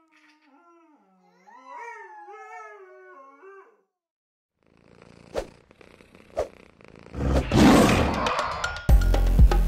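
A husky howls once, a long wavering call of about two seconds. After a short pause come a few sharp clicks and a loud roar, and music with a steady beat starts near the end.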